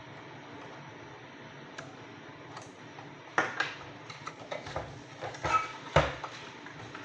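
Handling noise from disassembled vacuum-motor parts and tools: a quiet stretch, then a run of hard clicks and knocks starting about halfway in, the loudest at its start and near the end.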